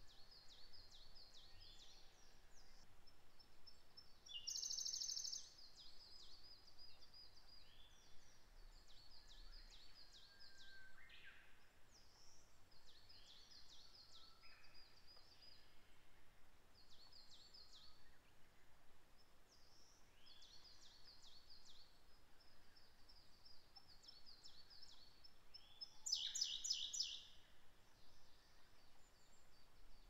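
Faint songbird chorus: several small birds repeat short high song phrases. Two louder, very rapid trills stand out, one about four seconds in and one near the end.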